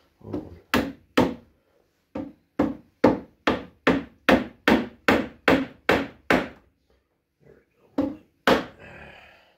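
Rubber mallet striking a wooden dowel to drive it into a hole in a wooden chair leg to repair a break: about fifteen sharp knocks, mostly in a steady run of two or three a second, with a pause and then two more near the end.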